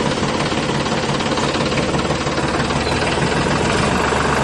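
Small tractor-type engine idling steadily with a rapid, even knocking beat.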